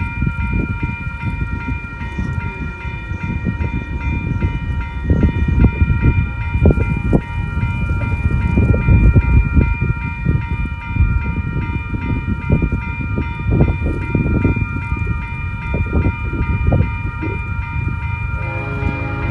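Railroad grade-crossing bell ringing continuously as the crossing gate is down, under gusts of wind buffeting the microphone. Near the end the horn of an approaching locomotive starts sounding.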